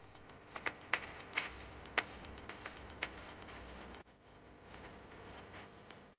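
Irregular light clicks and taps of hands handling a keyboard and its packaging, thinning out to faint ticks after about four seconds.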